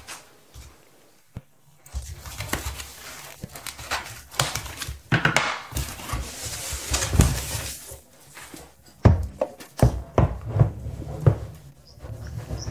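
Phone packaging being handled: a foam sheet rustling and a cardboard phone box scraped and knocked as it is turned over, with irregular clicks and a stretch of rustling about halfway through.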